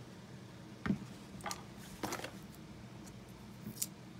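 A few light clicks and knocks as a plastic-cased sealed motorcycle battery and its small parts are handled on a desk, the loudest about a second in.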